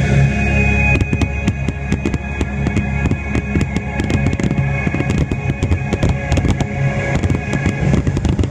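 Fireworks going off in a rapid, dense run of cracks and bangs, thickening about a second in, over loud show music with a steady low bass.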